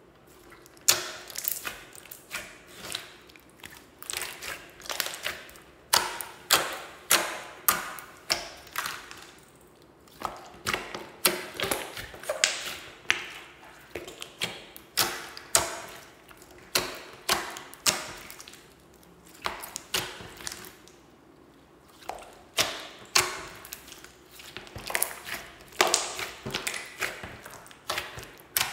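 Hands pressing and kneading a large mass of mixed slime and putty, making sharp sticky clicks and pops about once or twice a second as air pockets in the slime burst, with a short pause about two-thirds of the way through.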